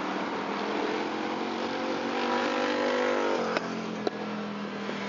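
An engine accelerating, its pitch rising slowly and then dropping suddenly about three and a half seconds in, followed by two sharp clicks.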